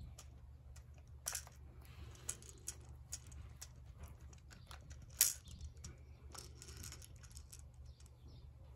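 Cavalier King Charles spaniel puppy chewing a plastic teething toy: faint, irregular clicks and clacks of teeth on hard plastic, with a louder click about five seconds in.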